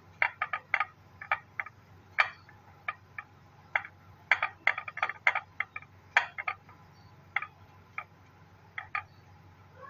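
Hot oil in a frying pan crackling and spitting, in irregular sharp pops of uneven loudness, about two a second.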